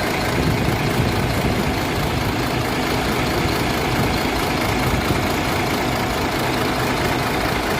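Vehicle engine idling steadily, an engine with a fault that makes it stall by itself; it keeps running without dying.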